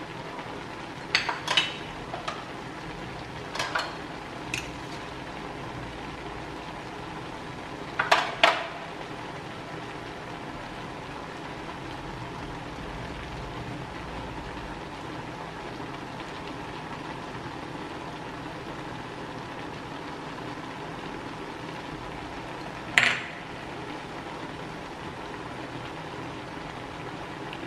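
Metal spoon clinking against a steel wok and dishes: a few sharp clinks in the first five seconds, two close together about eight seconds in, and one more about 23 seconds in, over a steady low background noise.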